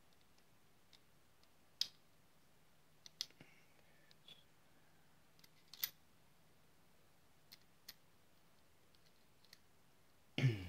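Scattered light clicks and taps from small padlock parts and tools being handled on a bench while an American 1105 brass padlock is taken apart, several seconds apart, with a louder knock near the end.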